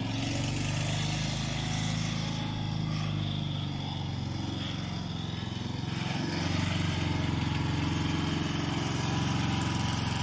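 Rover Rancher ride-on mower's 12 hp Briggs & Stratton engine running steadily.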